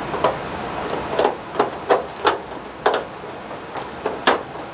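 Hand screwdriver driving a screw into a baseboard heater's sheet-metal thermostat junction box cover, giving about seven sharp clicks at uneven intervals, the loudest near the end.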